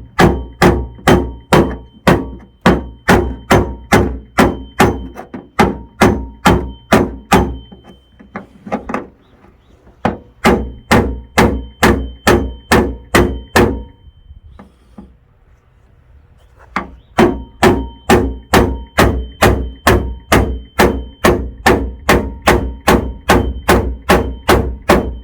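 Hammer tapping steadily on sheet metal, about three blows a second with a light metallic ring, working a dent in a car's steel trunk lid back up. The tapping comes in three runs, stopping briefly about a third of the way through and again after about halfway.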